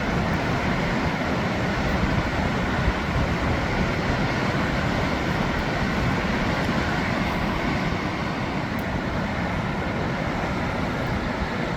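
Waterfall: a steady, powerful rush of falling water, an even deep noise with no breaks.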